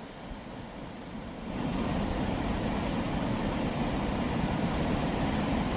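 Middle Falls on the Genesee River rushing: a steady roar of falling water that grows louder about a second and a half in.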